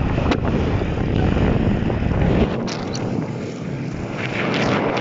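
Strong wind buffeting the microphone of a riding cyclist, a heavy low rumble that drops away about halfway through, followed by a couple of brief clicks.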